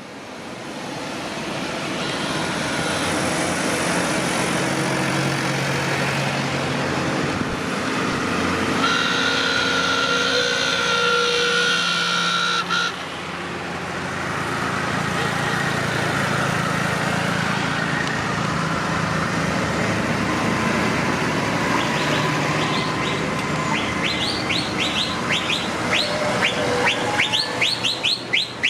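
Tractor engines running as tractors drive past in a procession, with a horn sounding for a few seconds midway. Near the end comes a quick run of sharp high clicks.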